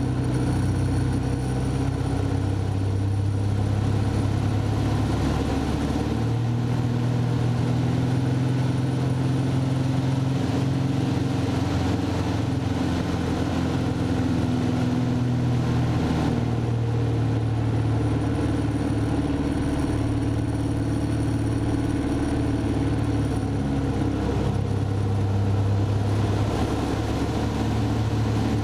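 Piston engine and propeller of a Van's RV light aircraft droning steadily, heard from inside the cockpit during aerobatic flight. The engine note shifts in pitch a few seconds in, again about halfway and near the end, as power and airspeed change through the manoeuvres.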